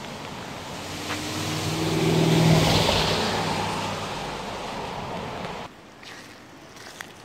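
A passing car, its engine and tyres swelling to a peak about two and a half seconds in and then fading, over the steady rush of the swollen, muddy river. The background noise drops off abruptly near the end.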